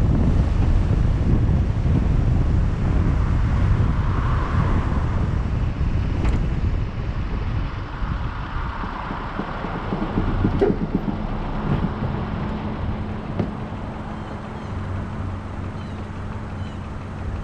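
Wind buffeting the microphone and car road noise that die down as the car slows to a stop, leaving a steady low engine hum at idle over the last several seconds.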